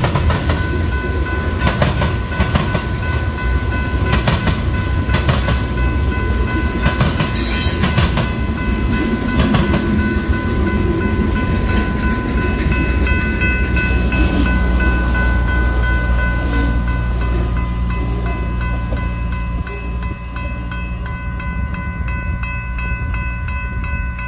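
Freight cars rolling past, their wheels clacking and banging over the railroad diamond crossing. The knocks come thick in the first half and thin out toward the end as the last cars go by. Steady high ringing tones run underneath.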